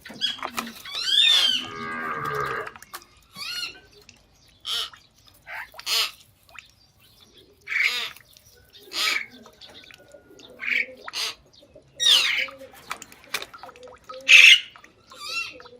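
Animal calls: a longer wavering call at the start, then a run of short high-pitched calls about once a second.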